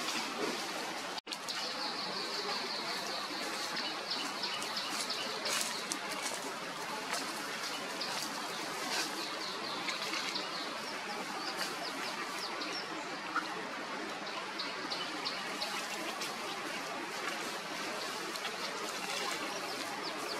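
Outdoor ambience: a steady hiss with a high, fast chirping trill running from about a second in to past the middle, then fading. The sound cuts out for an instant about a second in.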